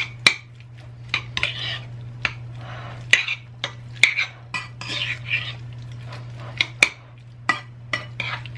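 Metal fork clinking and scraping against a ceramic bowl while mashing and stirring egg salad: irregular sharp clinks with softer wet stirring between them.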